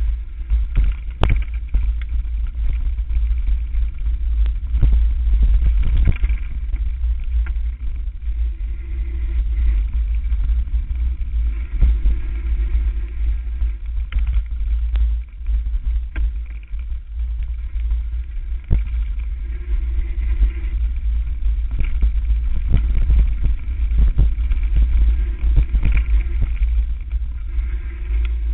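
Steady wind rumble on the camera's microphone as a mountain bike descends a dirt forest trail, broken by frequent knocks and rattles as the bike jolts over roots and bumps.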